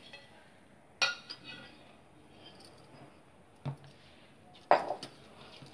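A stainless steel plate used as a lid clinks against a glass mixing bowl as it is lifted off, followed by a couple more knocks and clinks of the bowl as the dough is taken out. There are three separate short hits: one about a second in, then two more later, the last the loudest.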